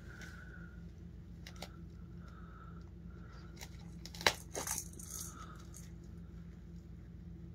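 A pet tearing at a soccer ball, shredding its cover and strings: scattered small clicks and scratches, with a sharp snap about four seconds in followed by a brief burst of tearing.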